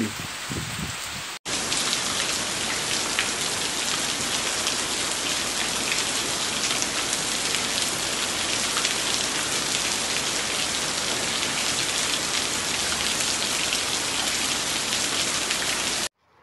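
Heavy rain pouring steadily onto leafy shrubs and a wall, a dense even hiss flecked with the patter of individual drops. Fainter rain is heard at first. The loud downpour starts abruptly about a second and a half in and stops suddenly just before the end.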